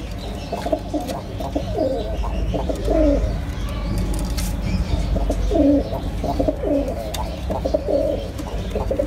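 Domestic high-flying pigeons cooing in a loft: a run of short, wavering coos from several birds, thinning out briefly around the middle.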